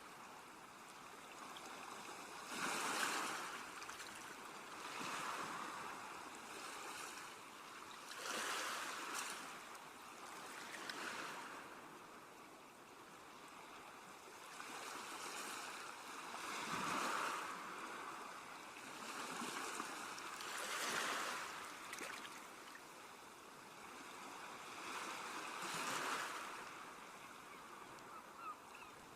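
Sea waves washing in on a shore: a steady hiss of surf that swells with each wave every few seconds and then falls back.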